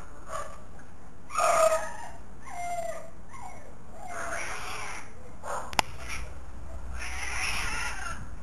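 Cats yowling at each other in a fight, several drawn-out calls with the loudest about one and a half seconds in. A sharp click comes just before the middle.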